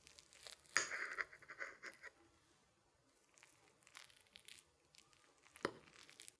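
A metal fork cutting down through a slice of tiramisu, soft crackling and squishing as it passes through the cocoa-dusted mascarpone cream and ladyfinger layers, loudest about a second in. Near the end a sharp click as the fork touches the ceramic plate.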